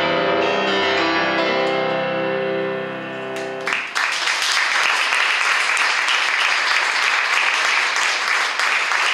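Shigeru Kawai grand piano playing the closing notes of a classical sonata and ringing on a final held chord, which stops a little under four seconds in. An audience then starts applauding steadily.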